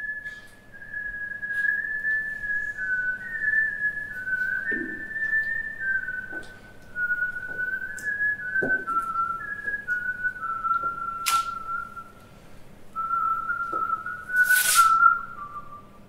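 A person whistling a slow tune, one clear line of held notes that steps gradually lower in pitch. A few soft knocks sound under it, and two brief hissing bursts come about eleven seconds in and near the end, the second the loudest sound.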